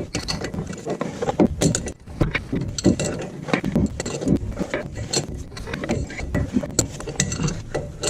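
Ratchet wrench clicking and metal tools clinking in quick, irregular strokes as a large ball joint nut is worked off the steering knuckle of a Ford F350 front axle.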